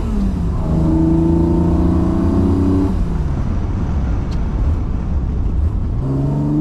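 BMW M30B35 3.5-litre straight-six on individual throttle bodies with a full exhaust, heard from inside the car, pulling hard through the gears. Revs drop right at the start, climb steadily for about two and a half seconds, drop again about three seconds in as the gear changes, and start climbing again near the end.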